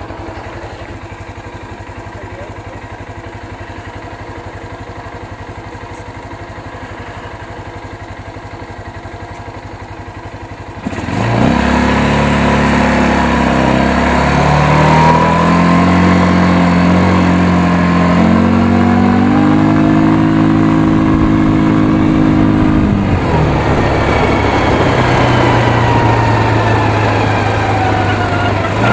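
Quad bike engine running quietly and steadily, then about eleven seconds in it gets much louder as the bike pulls away. The engine pitch climbs in steps as it gains speed and falls back lower about two-thirds of the way through.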